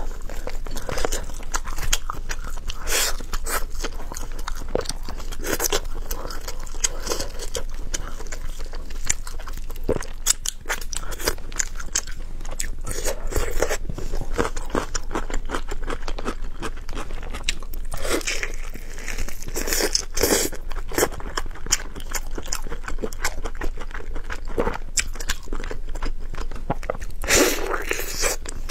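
A person chewing and biting braised pork knuckle, with a steady stream of small irregular clicks and crunches.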